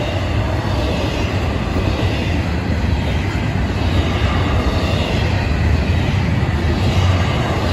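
Florida East Coast Railway freight train of double-stack intermodal well cars rolling past at speed: a steady rumble of steel wheels on the rails.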